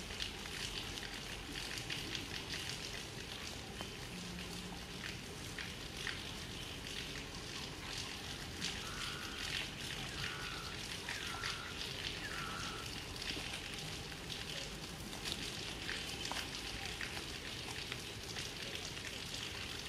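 Steady outdoor background hiss with light crackling, and four short, high calls in a row, about a second apart, roughly halfway through.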